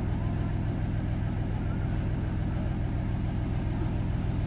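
Engine of a miniature railway locomotive dressed as Thomas the Tank Engine idling steadily, a low, even rumble.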